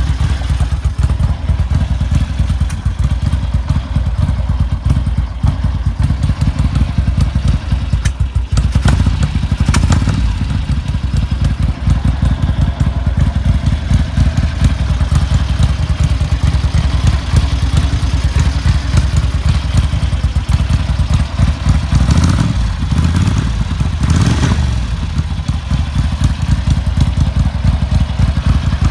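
Ducati 900 MHR's bevel-drive 90° V-twin running through round Conti mufflers, a loud, steady stream of exhaust pulses.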